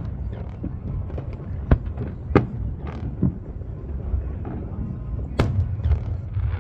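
Aerial fireworks bursting: a series of sharp bangs at uneven intervals over a continuous low rumble, the loudest about five and a half seconds in.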